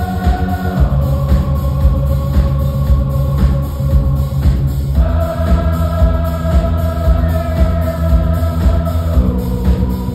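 Live funk band playing: held chords that change about every four seconds over electric bass and a steady drum beat.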